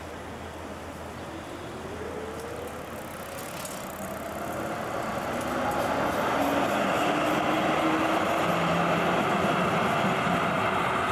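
Articulated street tram approaching and passing close by, its running noise growing louder over the first six seconds and then holding steady as it goes past.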